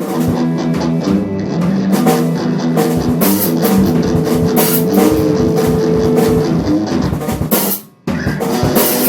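Rock band demo recording: a drum kit and guitar playing, with one note held for a couple of seconds midway. About eight seconds in the music stops for a moment, then the guitar comes back in.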